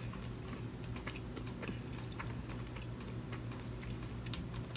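Close-miked chewing of sushi: scattered small wet mouth clicks, with one sharper click near the end, over a steady low hum.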